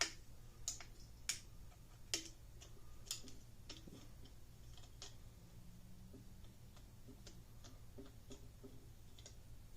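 Light, irregular metallic clicks and taps, several in the first few seconds and fainter and sparser after, as a dropped head-bolt washer is fished out of the cylinder head.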